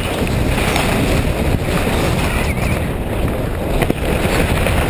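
Steady loud rush of wind on a skier's action-camera microphone while skiing downhill, mixed with the hiss of skis running over snow, with a couple of light knocks.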